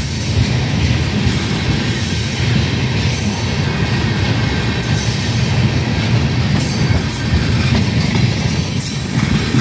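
Freight train of tank cars rolling past close by: a steady, loud noise of steel wheels running on the rails.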